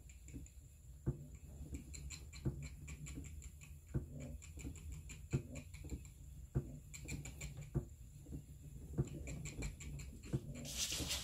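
Spinning wheel being treadled while plying yarn: a soft click about every second and a quarter, with lighter ticks between, over a low steady hum. A brief rustling hiss near the end.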